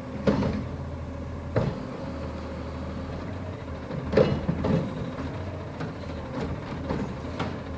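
Front-loading garbage truck's diesel engine running steadily, with sharp metallic clanks and bangs from the truck's body and loader gear about half a dozen times.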